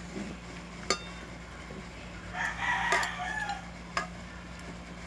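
A rooster crows once, about two and a half seconds in. There are single sharp clicks of utensils or dishes just before and after the crow.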